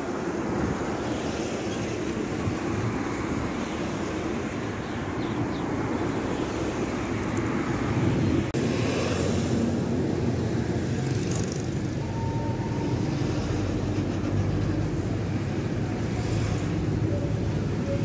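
A fishing boat's engine runs with a steady low rumble, with wind noise on the microphone throughout. The sound breaks off for an instant about halfway through and resumes at much the same level.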